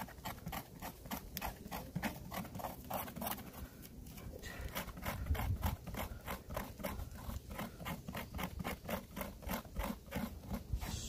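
Knife blade scraping a piece of fatwood on a wooden stump in quick, even strokes, about three or four a second, to raise shavings for fire tinder.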